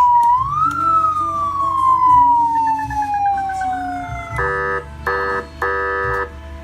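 Electronic ambulance siren through a CJB 200-watt amplifier and loudspeaker: a tone rises for under a second, then glides slowly down for about three and a half seconds, followed by three short blasts of a steady, buzzing horn tone.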